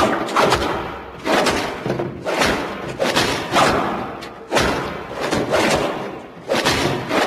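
Transformation-belt sound effects from the Century King Sun Driver in Kamen Rider Black Sun: a run of heavy thudding hits about once a second, each one fading out, with music.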